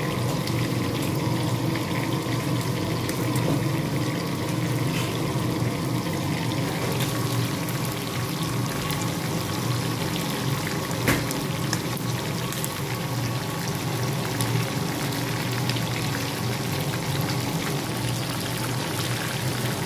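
Chicken deep-frying in a pan of hot oil: a steady bubbling sizzle with fine crackles over a low steady hum, with one sharp tick about eleven seconds in.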